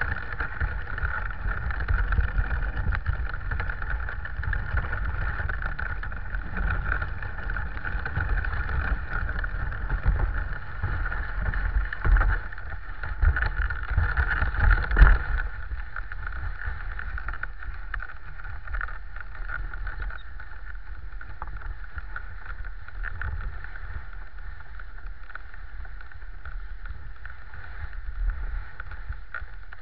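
Dog sled moving over a packed snow trail: a steady hiss and scrape from the runners over a low rumble, with a few knocks from the sled about halfway through. After that the sound settles a little quieter.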